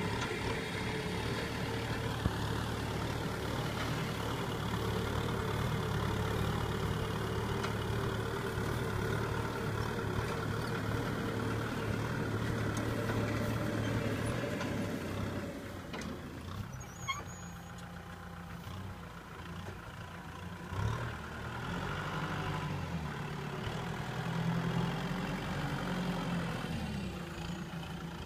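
Kubota M6040SU tractor's diesel engine running steadily under load while it pulls a disc implement through dry soil. About halfway through, the sound drops a little and changes.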